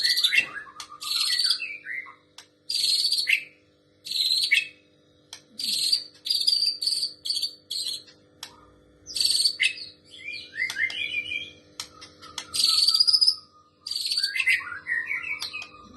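White-rumped shama singing: a dozen or so short, harsh, buzzy bursts, each well under a second, with quick whistled phrases between them. The buzzy notes are the shama's mimicry of a female prinia's call.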